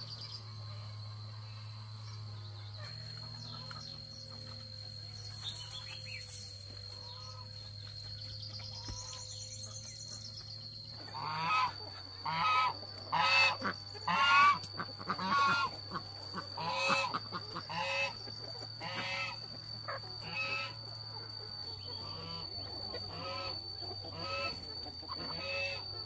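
Domestic poultry calling: a run of loud, repeated calls, about one a second, starting about eleven seconds in and gradually growing fainter, over a steady high-pitched whine.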